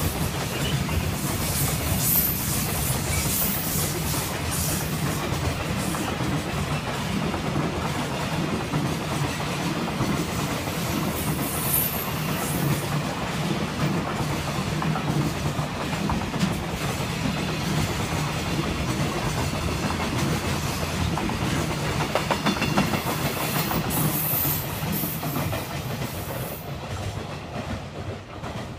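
Freight train's container flatcars rolling past on the rails in a steady rumble and clatter. The sound falls away near the end as the last wagon passes.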